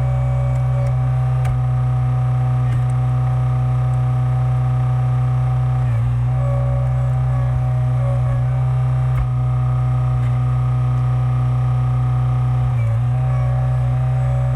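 Skid steer engine running steadily at constant speed, powering the hydraulic log splitter attachment, with brief dips in its note about six seconds in and again near the end.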